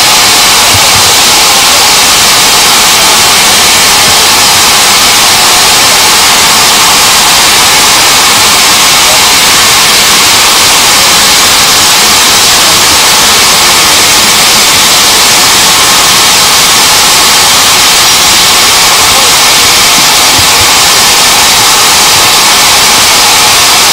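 Steam locomotive letting off steam: a loud, steady hiss of escaping steam that does not let up.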